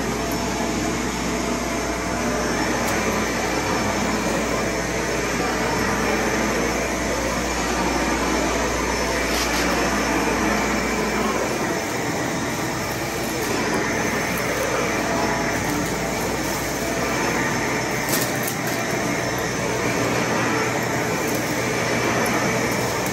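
VacMaster vacuum cleaner running steadily, with a couple of faint clicks.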